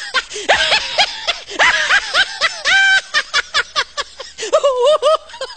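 High-pitched comic laughter in fast, choppy bursts of cackling: a meme laughter sound effect.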